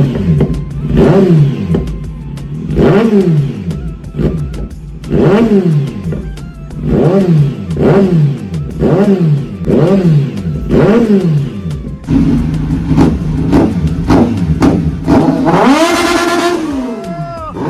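Kawasaki Z900's inline-four engine with a full-system aftermarket exhaust, revved while standing: about ten sharp throttle blips that rise and fall, quicker blips from about twelve seconds in, and a longer, higher rev near the end. The exhaust is very loud.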